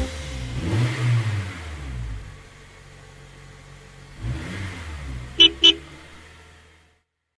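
Cartoon bus sound effect: the engine drives by with its pitch rising and falling, then two short horn beeps about five and a half seconds in, and the sound fades away.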